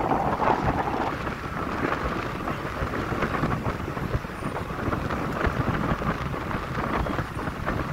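Wind buffeting the microphone over the rumble of a vehicle driving along a highway: a steady, fairly loud noise, heaviest in the low end.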